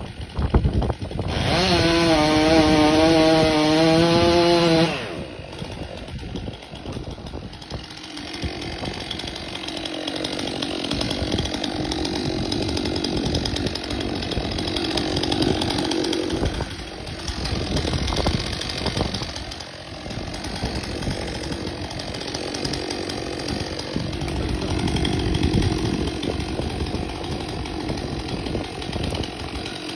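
Stihl MS 400 two-stroke chainsaw held at full throttle for a few seconds, a loud steady high-pitched whine that drops off sharply, then running at lower revs, rising and falling, for the rest of the time.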